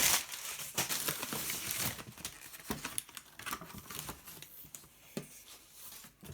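Packing material being crinkled and handled, a dense rustle with small clicks, loudest at the start and quieter after.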